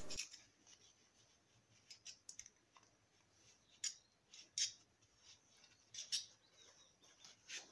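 Faint, scattered short rustles and clicks, about six of them, from toilet tissue being handled and pressed around the engine's pushrod tube with a screwdriver.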